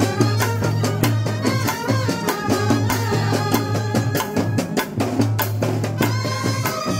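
Kerala bandset brass band playing a melody on trumpets and clarinets over regular drum strokes, with a low held bass note that drops out and returns.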